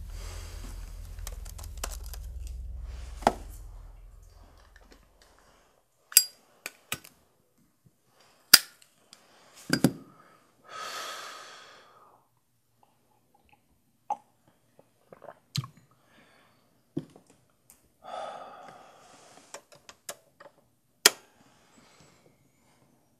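A low rumbling drone fading away over the first few seconds, then scattered sharp clicks and knocks with near silence between them, and two heavy breaths from a man, about ten and eighteen seconds in.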